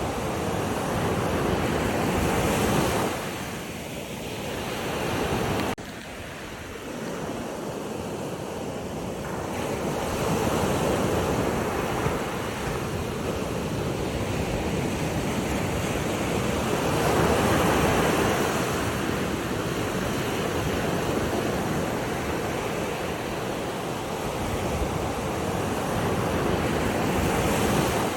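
Waves washing in with a steady rush of water that swells and falls back every several seconds, dropping sharply about six seconds in.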